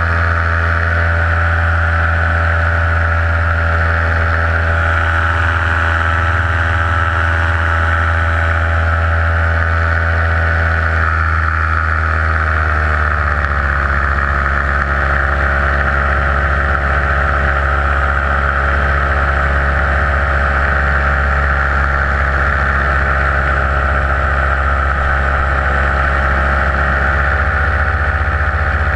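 Paramotor engine and propeller running steadily in flight; its pitch drops a little about twelve seconds in, then holds steady.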